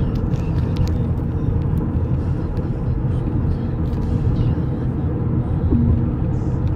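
Steady engine and road rumble of a moving vehicle, heard from inside.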